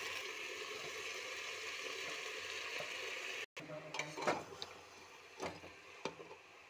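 Rice, vegetables and cabbage sizzling in a metal pot on the stove while a metal spoon stirs them. After a brief cut the sizzle is fainter and the spoon clinks and scrapes against the pot a few times.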